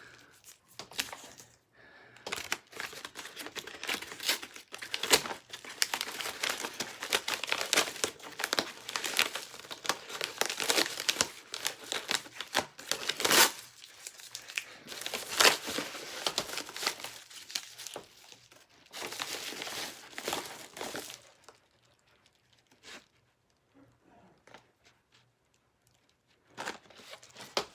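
A mail package being torn open by hand, its packaging crinkling and crackling with sharp tearing strokes. After about twenty seconds the handling stops and only a few faint ticks are left.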